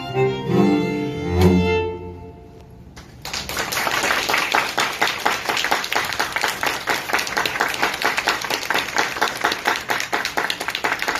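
Two violins and a cello play the last notes of a piece and end on a final chord about a second and a half in. After a short hush, the audience starts clapping about three seconds in and keeps up steady applause.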